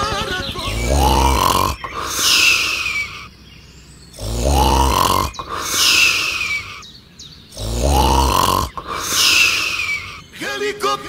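Cartoon snoring sound effect repeated three times: a low rumbling snore rising in pitch on each in-breath, then a high whistle falling on the out-breath.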